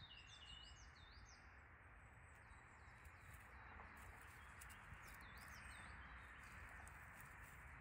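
Faint birdsong in woodland: small birds giving short, quick sweeping chirps, in clusters near the start and again a few seconds in, over a steady faint background hiss.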